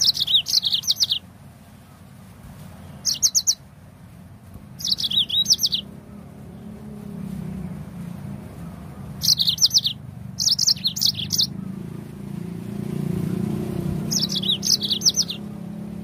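Yellow-fronted canary (Mozambique canary) singing: about six short phrases of fast, high, trilled notes, separated by pauses of one to three seconds.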